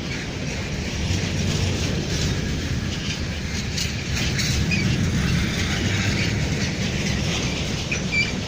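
Train running through a station, its wheels giving a steady rumble with scattered clicks over the rail joints and a short high squeak near the end.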